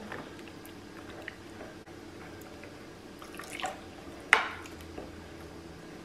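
Metal utensil stirring runny ragi dosa batter in a glass mixing bowl: faint wet stirring, with a few light ticks and then one sharp clink of metal on the glass a little past the middle.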